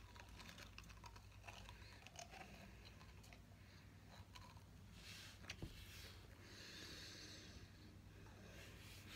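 Near silence: faint breathing and a few small mouth clicks from a mouthful of sour chewy candy cubes being worked with the mouth closed.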